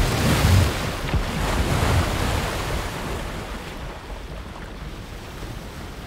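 Huge mass of glacier ice crashing into the sea: deep rumbling impacts in the first two seconds, then churning water and spray that die away.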